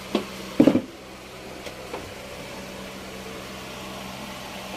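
Two short knocks about half a second apart near the start, from hands working on the aircraft's metal floor structure around the stringer being removed, then a faint tick, over a steady low mechanical hum.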